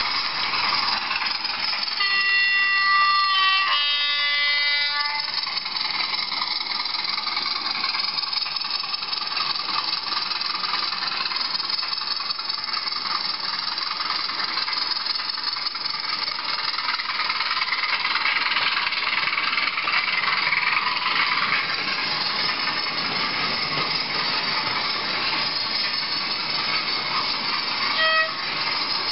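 Sound decoder of a Bachmann OO gauge Class 20 model diesel locomotive: its two-tone horn sounds about two seconds in, a lower note then a higher one, then the diesel engine sound runs steadily as the model moves. A short horn note comes near the end.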